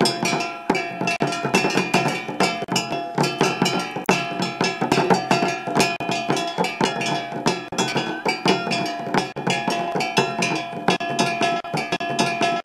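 Fast, dense drumming with sharp percussion strikes and a steady held tone over it, the music that accompanies a Dogon mask dance.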